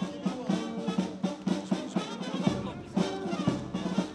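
Brass band playing a march, with held brass notes over a steady drum beat.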